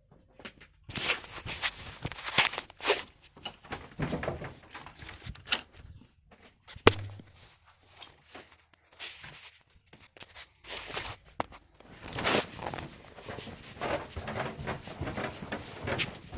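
Footsteps and handling noise: irregular thuds, rustles and clicks, with one sharp click about seven seconds in.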